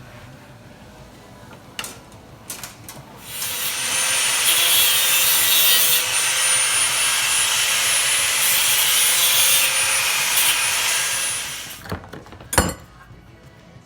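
Continuous rasping, scraping tool noise on metal work for about eight seconds, starting a few seconds in, followed by two sharp knocks near the end.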